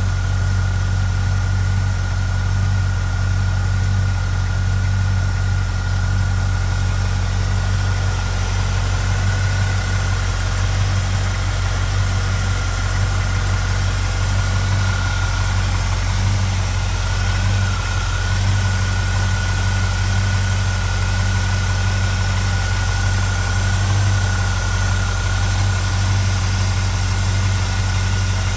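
Chevrolet 350 small-block V8 idling steadily, with a thin steady whine above the engine note.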